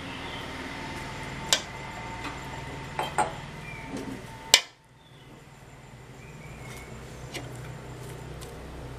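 Steel ladle clinking against a metal cooking pot a handful of times while stirring a thick vegetable dish, the loudest clink about four and a half seconds in. A steady background hum cuts out right after that clink.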